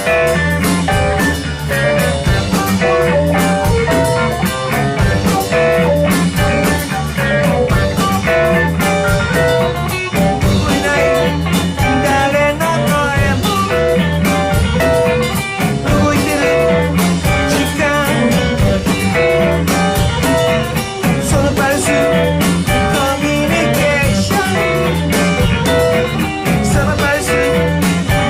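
Band playing a blues-tinged rock song: a guitar picks a riff of short repeated notes over bass and drums.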